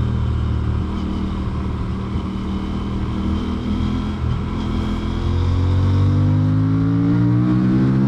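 Aprilia Tuono 457's parallel-twin engine under way, running steadily at first, then revving up from about five seconds in as the bike accelerates.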